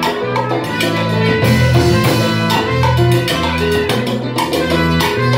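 Live salsa band playing, a trumpet and saxophone section over timbales, cymbals and a strong bass line, with a steady rhythm of percussion strikes.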